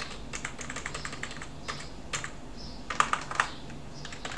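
Typing on a computer keyboard: a quick, irregular run of key clicks, with a few louder strokes about three seconds in.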